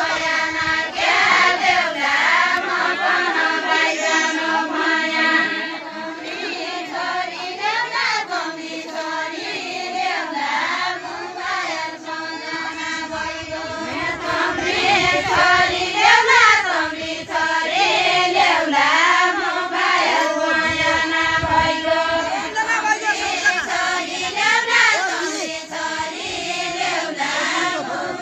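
A group of voices, mostly women's, singing a Deuda folk song in chorus, with no instruments. The melodic phrase rises and falls and comes round again about every eight seconds.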